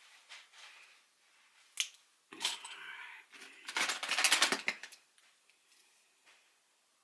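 A single sharp click about two seconds in, then a rustle and a loud burst of rapid clattering from small hard objects being handled and rummaged through.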